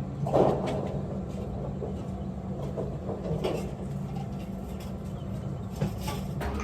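Vehicle engine running steadily with a low hum, with scattered knocks and rattles; a louder clatter comes about half a second in.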